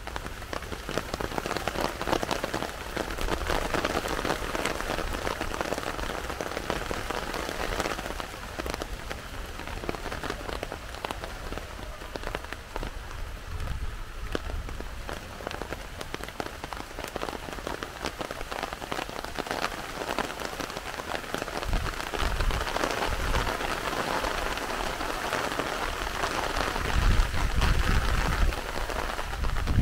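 Heavy rain falling steadily, a dense patter of drops on surfaces, with a few low rumbles in the last several seconds.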